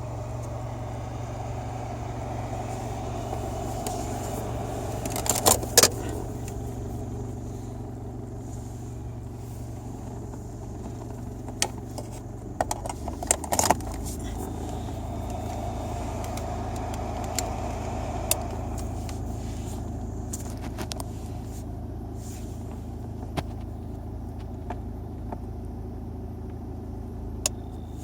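Portable thermoelectric car fridge running with a steady hum, with a few sharp clicks and knocks about five seconds in and again around twelve to fourteen seconds. The fridge runs but does not cool.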